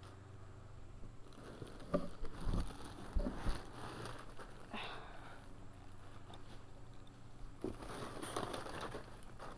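Plastic packing material crinkling and rustling as items are pulled out of a cardboard box, with a few handling knocks about two to three and a half seconds in.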